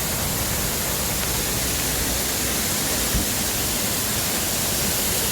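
Waterfall roaring steadily: a dense, unbroken rush of falling water.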